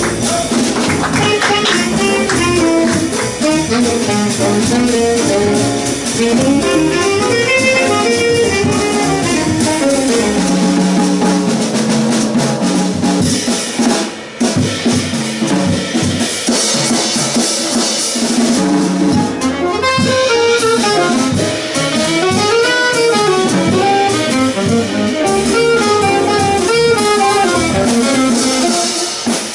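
Live jazz quintet playing: tenor and alto saxophones play melody lines over acoustic piano, double bass and a drum kit.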